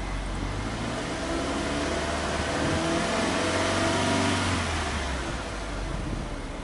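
Subaru Legacy B4 2.0GT DIT's turbocharged 2.0-litre flat-four revved once in neutral, heard at the tailpipes. The exhaust note climbs from idle, peaks about four seconds in, then drops back to idle.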